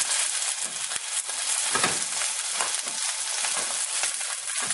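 Sirloin steak's fat edge sizzling and crackling in a hot frying pan as the fat renders off.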